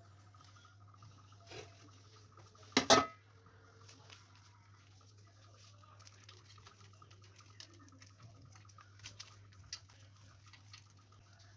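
Dishes clattering once, briefly and loudly, about three seconds in, with a smaller knock just before it and a few faint light taps later, over a steady low hum.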